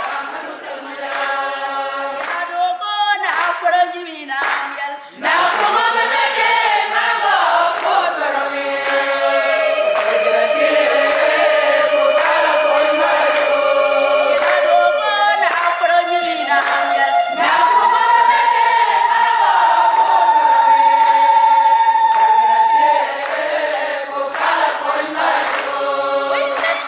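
A small group of women singing together without instruments, in harmony, with several long held notes.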